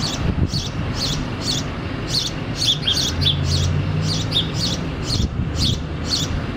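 House sparrow chirping, a steady run of short chirps about two a second.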